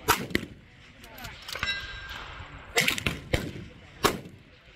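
Scoped bolt-action precision rifle fired from a barricade: sharp rifle shots a couple of seconds apart, the loudest about three of them, with quieter cracks close behind the first two.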